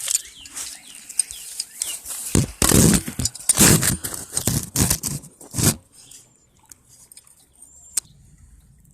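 Scraping, rustling and clicking as two wrenches are set on a buried water shut-off valve: a dense run of scrapes and knocks for about three seconds, then quieter, with one sharp click near the end.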